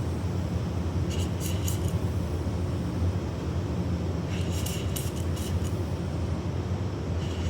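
Oxy-acetylene brazing torch being lit with a flint striker: two rounds of quick scratchy clicks that don't catch, then at the very end it lights with a sudden pop and a steady hissing flame. The flame lit a little inside the tip before coming out.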